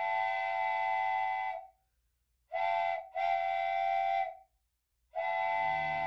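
Multi-chime train whistle blowing a sequence of blasts: a long blast, a short one, another long one, and a final long blast starting near the end, each a steady chord of several close pitches.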